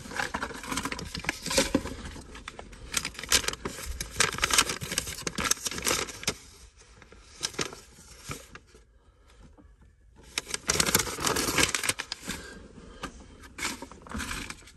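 Paper documents rustling and being handled while someone rummages in a car, with irregular clicks and scrapes; it goes quieter for a few seconds in the middle, then picks up again.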